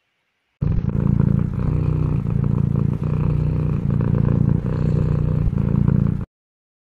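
Domestic cat purring loudly and steadily, close to the microphone; starts suddenly about half a second in and cuts off suddenly near the end.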